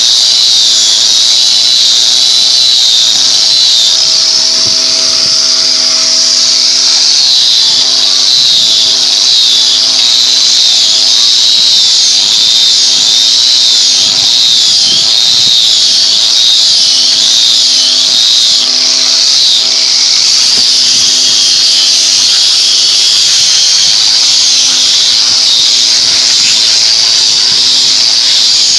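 A woodworking power tool running steadily: a loud, high, slightly wavering hiss over a few steady low hums.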